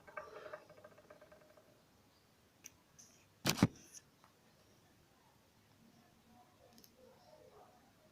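A quiet room with a few small clicks and one sharp knock about three and a half seconds in, as of small objects being handled or set down.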